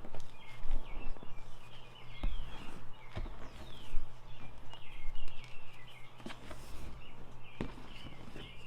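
Blocks of Ader gym chalk being crushed by hand, crunching and crumbling, with a few heavier knocks about two, three and seven and a half seconds in. Small birds chirp steadily in the background over a low, steady hum.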